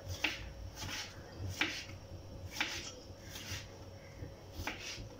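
Kitchen knife slicing a tomato on a plastic cutting board: about six sharp, irregularly spaced taps as the blade cuts through and meets the board.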